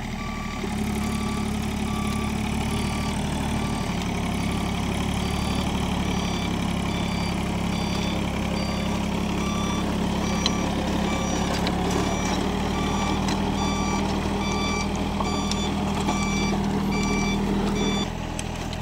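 VST compact tractor's diesel engine running steadily while driving a rotary tiller through the soil, picking up just under a second in and dropping near the end. A regular electronic beep repeats over the engine throughout.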